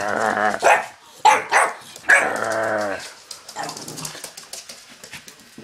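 Staffordshire bull terrier puppy barking: a string of loud barks, some drawn out, in the first three seconds, then fainter and fading.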